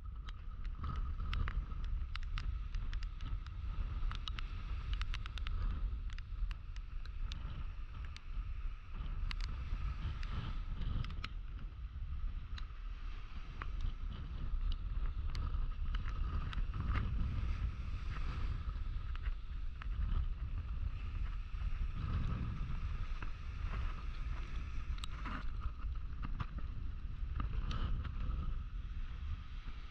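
Wind buffeting the microphone over the wash of breaking surf on an ocean beach. Scattered sharp clicks run through it, with a thin steady whine.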